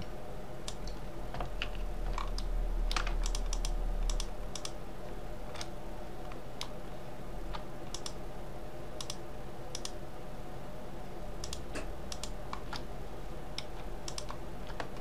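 Computer mouse and keyboard clicking irregularly as faces are Shift-clicked and the view is moved, over a steady low hum.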